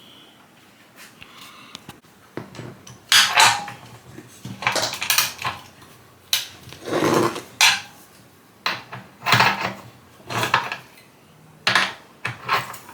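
Metal tools and hardware clinking and rattling in a string of irregular bursts as a wrench and socket work on the dryer's drum roller bolt.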